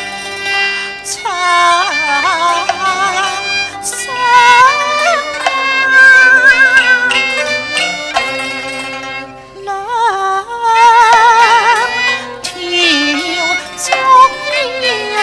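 Cantonese opera band playing: melody lines with heavy vibrato and sliding notes over a steady accompaniment.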